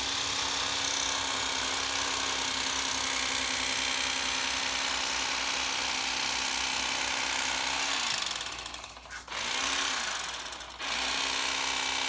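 Bubba lithium cordless electric fillet knife running steadily, its reciprocating blades cutting a walleye fillet off its skin. The motor winds down about 8 seconds in, gives a brief run a second or so later, then starts again and runs steadily near the end.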